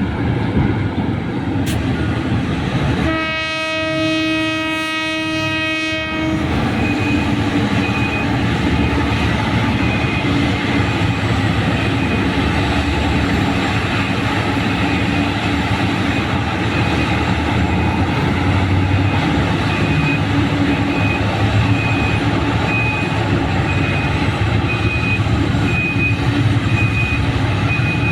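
Heavy diesel mining machinery running steadily. A horn gives one long blast about three seconds in, lasting about three seconds. From about seven seconds on, a high electronic reversing alarm beeps over and over.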